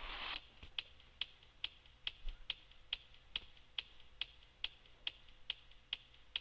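Sharp, evenly spaced clicks, a little over two a second, keeping time in a background song during a break without singing.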